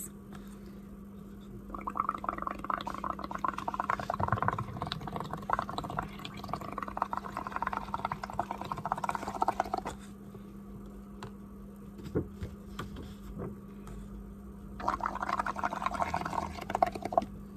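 Bubbles gurgling as air is blown through a paper straw into a cup of green bubble-paint mix, thinned with a little extra water so it foams up. It comes as a rapid bubbling in two bouts: a long one of about eight seconds, then a shorter one near the end.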